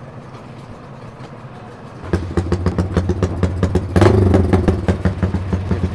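A motorcycle engine starts about two seconds in and runs with an even pulsing beat, then is revved louder at about four seconds.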